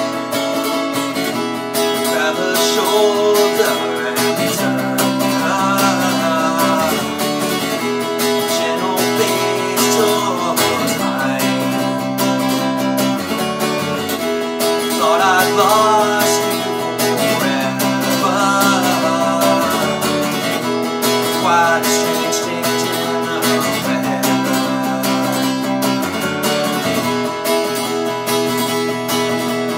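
Acoustic guitar played solo through an instrumental passage, strummed chords changing every second or two.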